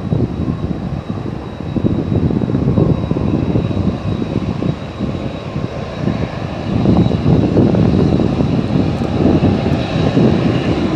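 Boeing 747-400F freighter's jet engines rumbling as it rolls along the runway after landing, with a faint steady high whine over the rumble. The rumble grows louder about seven seconds in.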